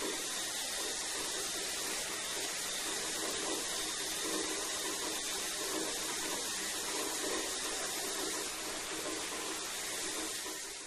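Shower running: a steady spray of water falling, easing off slightly at the very end.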